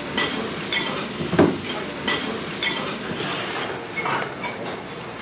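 Metal cutlery clinking and scraping against dishes, with stirring noise and a few light clinks.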